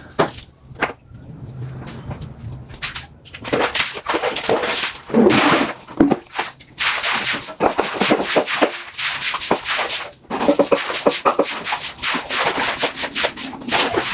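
Scrubbing: a brush or pad rubbed hard over a surface in quick repeated strokes, with a few short pauses.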